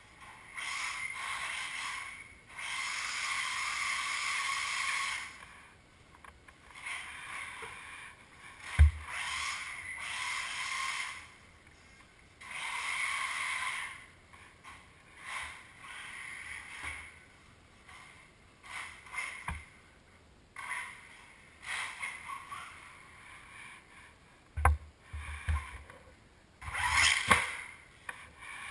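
Losi Mini 8ight RC buggy's electric motor and drivetrain whining in repeated throttle bursts of a few seconds each, with short gaps between. Several sharp thumps from the buggy hitting or landing on things, the loudest about nine seconds in and a cluster near the end.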